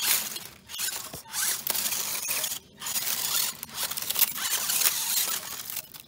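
1:16-scale RC rock bouncer 4x4 crawling over creek-bed stones in stop-start bursts, its small electric motor and gears whirring while tyres and chassis scrape and clatter on the rocks.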